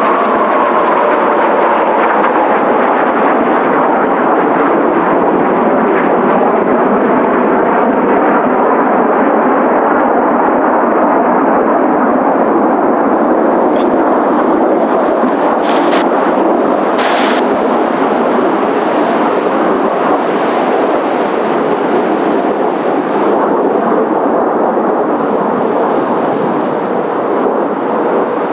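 Kawasaki T-4 jet trainers flying a formation pass, a loud, steady jet roar with a falling whine just at the start as they go by.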